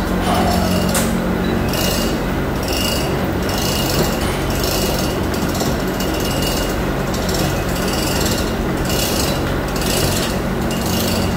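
Manual chain hoist hauling a heavy steel injection mould, its chain rattling and clicking through the hoist in repeated bursts about every half second to second, over a steady low machinery hum.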